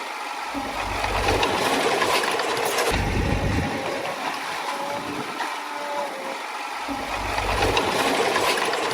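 Bulldozer diesel engine running as the machine works, with a deep rumble coming and going several times.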